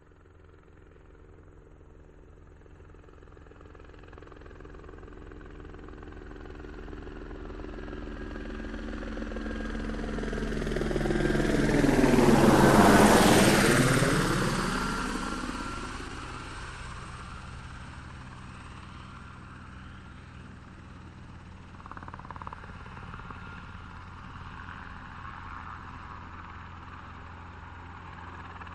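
An aircraft engine passing over, rising slowly to a peak about 13 seconds in and then fading away.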